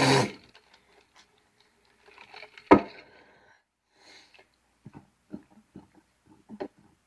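The tail of a burp, then a mostly quiet stretch broken by small clicks and knocks, with one sharp click about two and a half seconds in.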